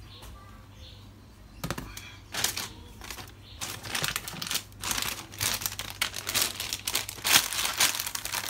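Plastic bag around a graphics card crinkling and rustling as it is handled, starting about two seconds in and growing busier and louder toward the end.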